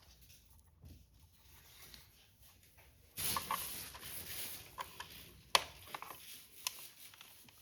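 Plastic parts of a scooter tail light mount and its strap being handled and fitted: quiet at first, then rustling from about three seconds in with two sharp clicks.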